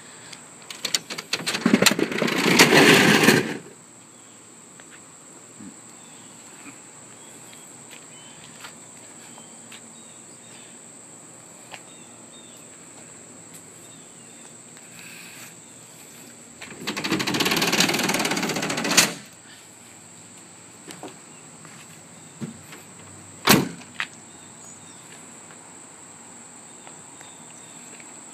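BAK Rollbak G2 retractable hard tonneau cover being pulled along its rails, a noisy two-second rolling rattle that ends in a click, with a sharp single click a few seconds later. An earlier two-second scuffing noise comes near the start, and a steady high insect drone runs underneath.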